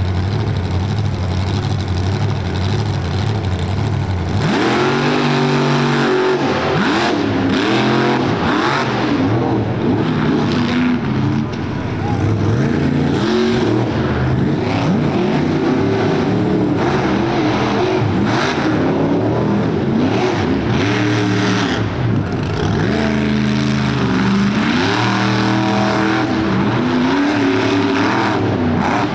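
Monster truck engine running low and steady, then from about four seconds in revving again and again, its pitch rising and falling with the throttle.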